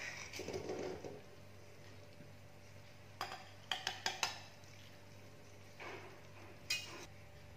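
A metal spatula scraping and clinking against a wok and serving plate as stir-fried food is scooped out: a cluster of short clinks about three to four seconds in, and a few more near the end.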